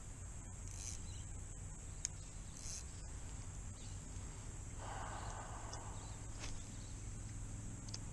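Steady high-pitched chorus of insects in the bush, with a few light clicks from the fishing rod and reel being handled.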